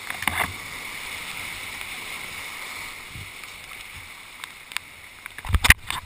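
Whitewater rushing around a kayak as it runs a rapid, a steady hiss of churning river water. A sharp hit comes just after the start, and a cluster of loud knocks comes near the end.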